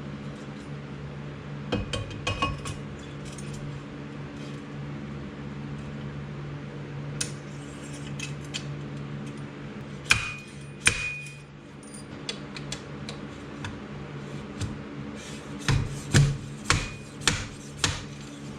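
Metal tools and suspension parts clinking and tapping during a motorcycle suspension rebuild, over a steady low hum. Two ringing metallic strikes come about ten seconds in, then a run of sharper knocks near the end.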